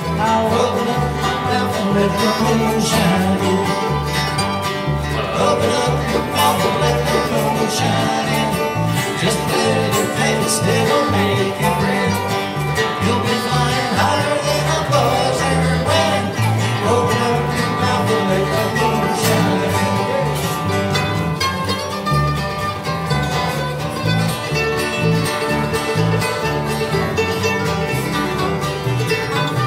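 Live bluegrass band playing an instrumental break with no singing: banjo, dobro, mandolin and acoustic guitar picking together at a steady tempo, with a running bass line underneath.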